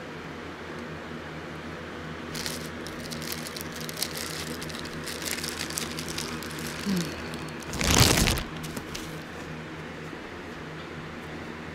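Clear plastic bag crinkling and rustling as a sneaker is handled and unwrapped from it, with one louder burst of rustling about eight seconds in. A steady low hum runs underneath.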